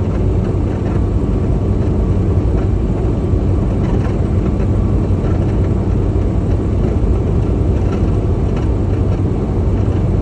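Semi-truck diesel engine and road noise while driving at a steady speed: a loud, even drone with a constant low hum.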